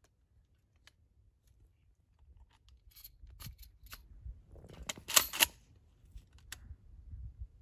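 A 12-gauge shotgun being handled and its action worked: scattered light metallic clicks and rattles from about three seconds in, then two loud clacks close together about five seconds in.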